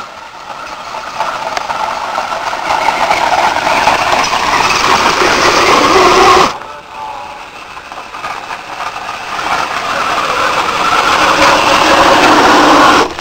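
Radio-controlled pulling vehicle's motor running hard under load as it drags a weight sled, the sound building over about six seconds and cutting off suddenly. A second run builds the same way and cuts off near the end.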